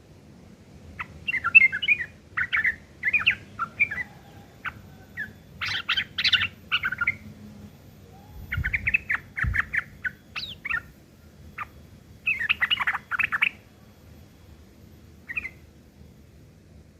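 Yellow-vented bulbul (trucuk) singing harsh, chattering phrases in short bursts with pauses between, its song worked through with mimicked long-tailed shrike (cendet) notes.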